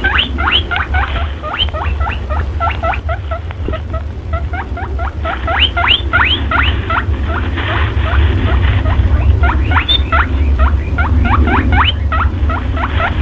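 Rabbit squeaking over and over: a fast run of short high squeaks, several a second, each sliding down in pitch, over a steady low hum.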